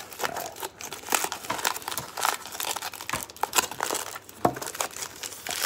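Aluminium foil wrapping crinkling and crackling as it is peeled off a small tin by hand.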